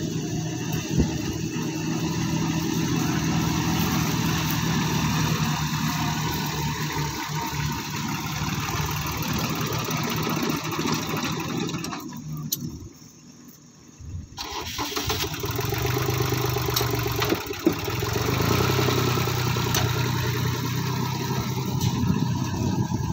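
Compact tractor diesel engines running at a steady pitch. A short break of about two seconds comes near the middle, and after it the engine runs at a lower pitch.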